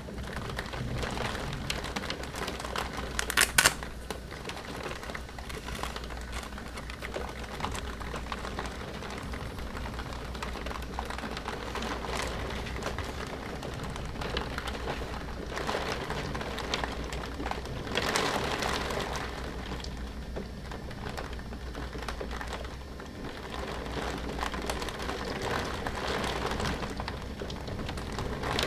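Heavy thunderstorm rain beating on window glass: a steady hiss full of small drop ticks, swelling for a moment about eighteen seconds in. A sharp double knock about three and a half seconds in is the loudest sound.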